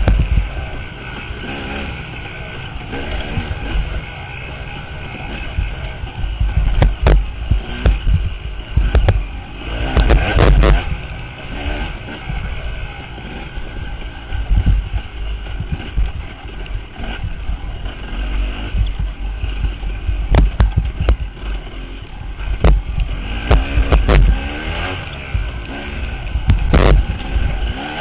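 KTM dirt bike engine revving up and down as it is ridden hard through the gears. Wind buffets the microphone, and the bike knocks sharply over bumps several times.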